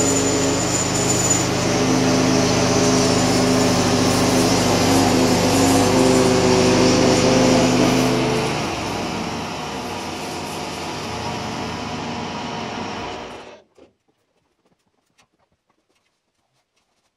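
DIY bandsaw mill's engine running with the blade sawing through a spruce log. About eight and a half seconds in the sound drops to a quieter, rougher running, and about thirteen and a half seconds in it shuts off suddenly, leaving a few faint ticks.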